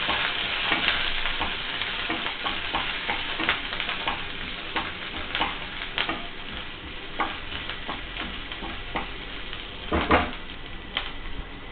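Chopped onion, dried red chilli and curry leaves sizzling in hot oil in a kadai while being stirred, the wooden spatula scraping and knocking against the pan many times. The loudest knocks come about ten seconds in.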